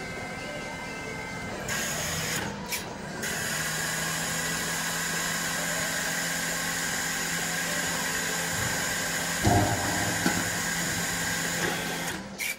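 Four-way forklift's hydraulic pump motor running with a steady whine as the fork positioner moves the forks. It sets in about three seconds in, and there is a single knock about nine and a half seconds in.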